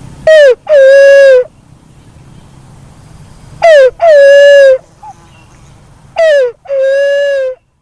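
Three calls of a black-naped fruit dove (walik kembang), about three seconds apart. Each is a short falling note followed by a longer, level, hooting note. The third call is a little quieter than the first two.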